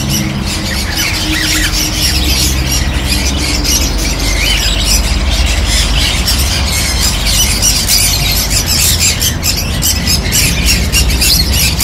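Many caged small parrots and finches, budgerigars among them, chattering and squawking together in a dense, unbroken chorus of shrill short calls. A steady low hum runs underneath.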